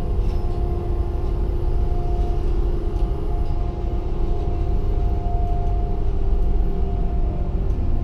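Liebherr LHM 550 mobile harbour crane's machinery running with a steady low rumble and a steady whine, heard from inside the operator's cab, as the hoist lowers a suspended container.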